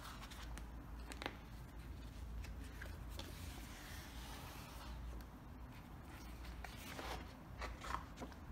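Heavy vinyl-coated, embossed wallpaper sample pages being turned by hand in a catalogue: soft rustles and flaps of the thick sheets. The pages rustle once about a second in and several times near the end, over a steady low hum.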